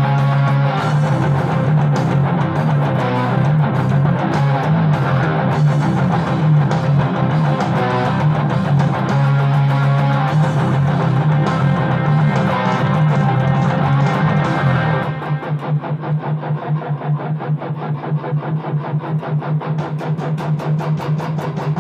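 Heavily distorted electric guitar playing metal riffs. About fifteen seconds in, the sustained riffing gives way to a fast, even run of short picked notes.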